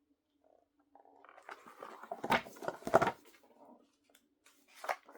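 Paper pages of a picture book rustling as they are handled and turned, with two louder crackles near the middle and a short one near the end.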